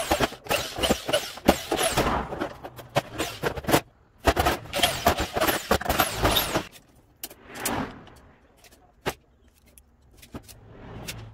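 Corded power drill used as a screwdriver, run in two long bursts to back out the screws holding a plastic seat to its steel frame, then a few light clicks of handling.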